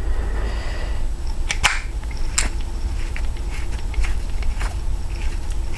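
Klom tubular key cutting machine being worked by hand: a few sharp clicks and many small ticks as the depth gauge is set and the cutter is turned into the key, over a steady low hum.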